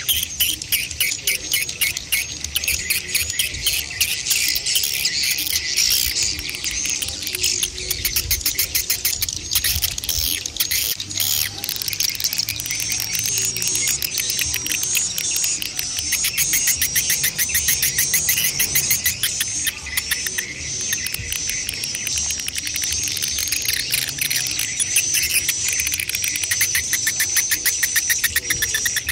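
Swiftlet 'mother and chick' lure call, as played through tweeters at a swiftlet house: a continuous rapid run of high clicking ticks mixed with shrill twittering chirps.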